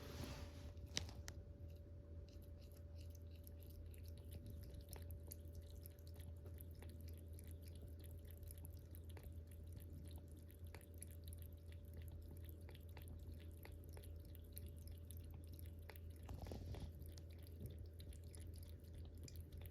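A cat lapping water: a long run of quick, faint wet clicks from its tongue, with one louder click about a second in, over a steady low hum.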